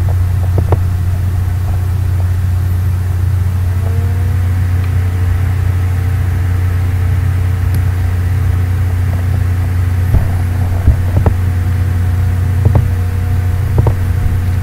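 A steady low computer hum. About four seconds in, a fan whine rises and then holds steady as the machine comes under load. A few short clicks come near the end.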